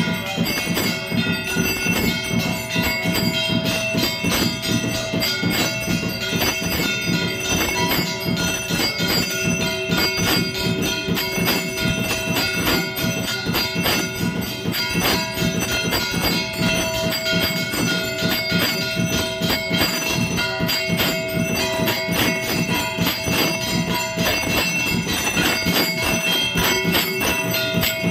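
Temple bells and metal percussion clanging fast and without pause for the aarti. It is a dense metallic din with several ringing tones held over the strikes, steady in loudness throughout.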